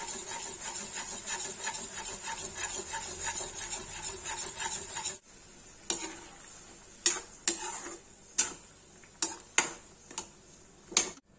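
A steel spoon stirs and scrapes thick masala gravy around a steel kadai in quick, even strokes for about five seconds. After a break, a slotted steel spoon stirring potatoes in the gravy clanks sharply against the pan several times.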